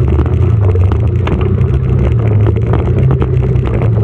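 Motorcycle engine running steadily at low speed, heard from the rider's seat, with scattered short knocks through it.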